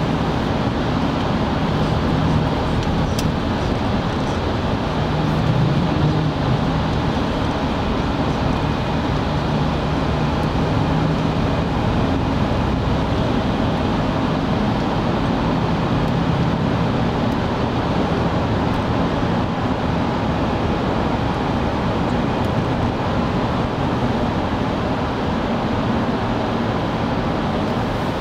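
Steady road and engine noise heard inside a car's cabin while driving through a road tunnel in traffic, with a low hum that comes and goes.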